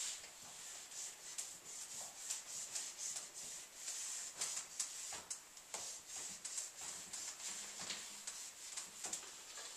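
Whiteboard eraser being wiped across the board in a quick series of short, hissing strokes, clearing dry-erase marker writing.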